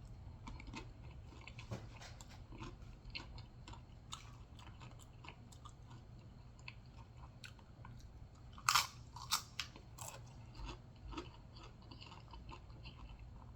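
A person chewing a mouthful of loaded nachos, close to the microphone: small crunches throughout, with two louder crunches about nine seconds in.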